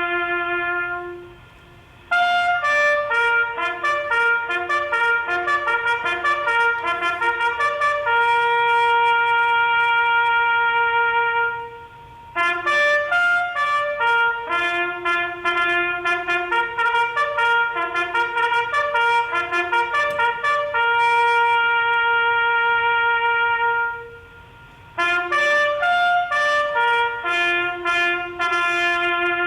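Solo brass instrument playing a slow melody of quick runs and long held notes, in phrases broken by short pauses about two, twelve and twenty-five seconds in.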